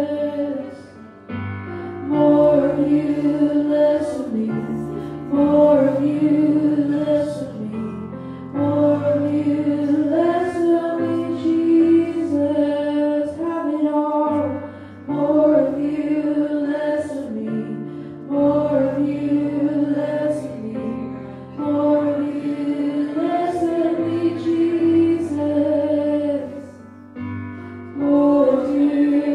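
Voices singing a slow worship song in long held phrases of a few seconds each, over sustained low chords.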